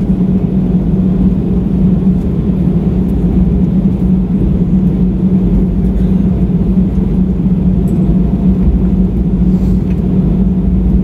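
Airbus A320 cabin noise while taxiing after landing: the engines' steady rumble with a constant low hum.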